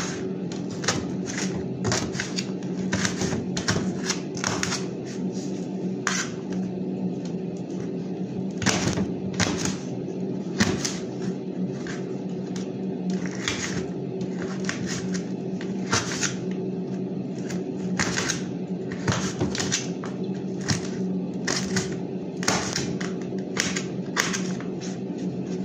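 Kitchen knife slicing vegetables held in the hand over a stainless steel bowl: irregular crisp clicks and taps, one or two a second, over a steady low hum.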